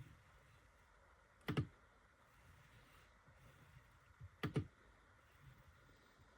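A few sharp clicks over a faint steady hiss: one about a second and a half in, then a quick double click about four and a half seconds in.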